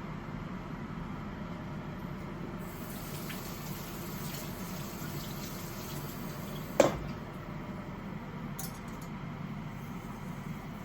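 Kitchen sounds: liquid running with a hiss from about two and a half seconds in, over a steady low hum. Near seven seconds a single sharp clink rings briefly.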